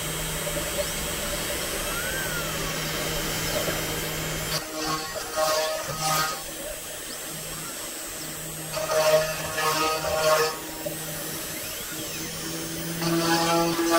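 Sainsmart Genmitsu 4040 Pro CNC router running a cutting program in 3 mm plywood: the router spindle hums steadily, and three louder whining spells of one to two seconds each come as the machine drives the bit through the sheet, the first about four and a half seconds in.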